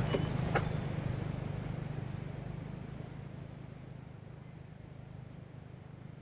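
Engine idling with a steady low hum that slowly fades. Two light clicks come near the start, and a short run of about seven quick high chirps comes near the end.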